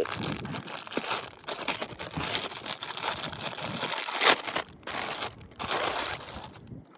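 Plastic bags crinkling and rustling as they are handled, stopping shortly before the end.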